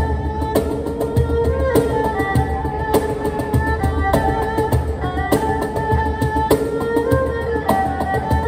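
Improvised erhu and cajon duet: the erhu plays a bowed melody of held notes with some slides, over a steady cajon rhythm of deep bass thumps about once a second with sharper slaps between them.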